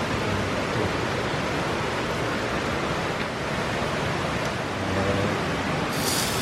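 Steady rushing of river water. A brighter, higher hiss comes in near the end.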